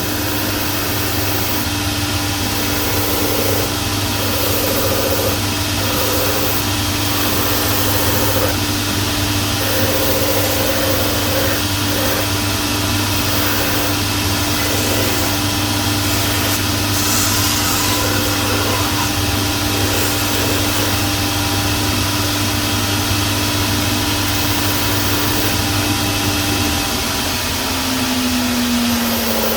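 Shoe-repair edge trimmer running steadily while a leather sole edge is trimmed, its sound changing on and off as the sole is worked against the cutter. Near the end the motor is switched off and its hum drops in pitch as it winds down.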